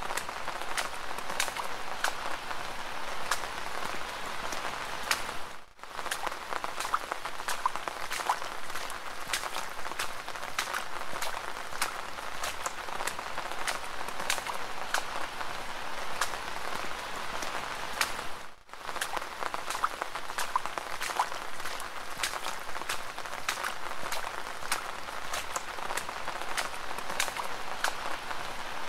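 Steady rain falling, with many sharp individual drop impacts over an even hiss. The sound dips almost to nothing for a moment twice.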